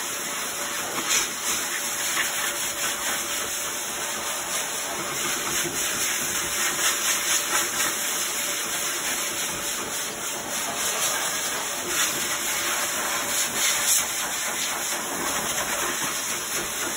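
Pet-grooming force dryer blowing a steady, rushing hiss of air through its hose nozzle into a wet dog coat, driving the water out.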